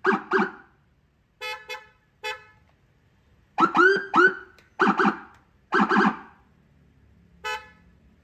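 Car-mounted electronic siren sounding a series of short horn-like blasts with pauses between them. Around the middle, a few quick rising chirps.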